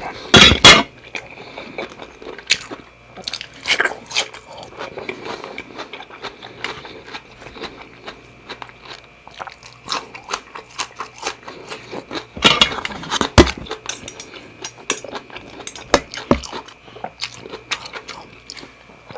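Close-up chewing and biting of seafood fried rice with shrimp and squid: irregular wet clicks and crunches. There are two louder noises, one just after the start and one about two-thirds through.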